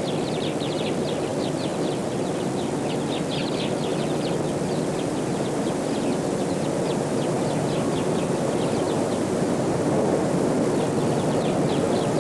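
Many short, high chirps, like birds calling, repeating rapidly over a steady rushing noise.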